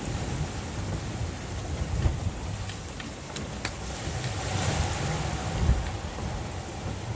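Rush of breaking waves and wake water around a Pogo 12.5 sailboat running fast before heavy following seas, under steady wind buffeting on the microphone. Two faint ticks come near the middle, the water hiss swells about two-thirds through, and a hard low gust on the microphone follows soon after.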